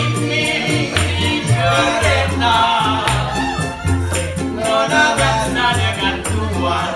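Live acoustic band playing an Indonesian song: a male singer with other voices joining, two small ukulele-type instruments strummed, an upright double bass stepping through low notes, and a steady rattling beat of hand percussion.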